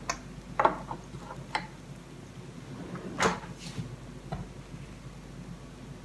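Short clicks and knocks from a kitchen drawer and the small items in it as a toothpick is taken out. The loudest knock comes a little over three seconds in, as the drawer is pushed shut.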